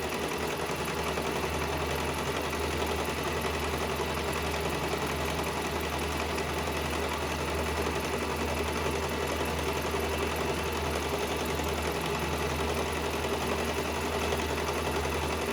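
Singer Traditional electric sewing machine running continuously at a steady speed with the foot pedal held down, stitching a long seam through a hair weft.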